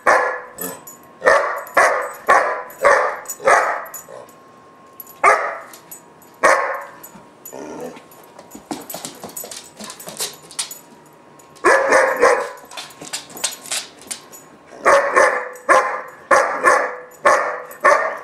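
German shepherd puppy, about four to five months old, barking in a temper tantrum: quick runs of sharp barks, a few single barks, a quieter stretch about halfway, then another fast run of about six barks near the end.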